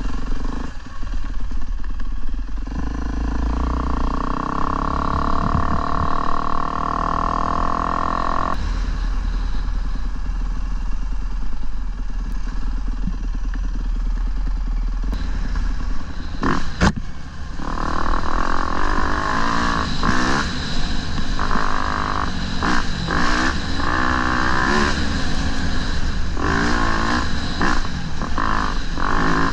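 Dirt bike engine running under load, heard from the rider's seat. It accelerates in a long rising sweep that breaks off at a gear change. After a brief sharp knock a little past halfway, the throttle goes on and off in quick rising and falling bursts.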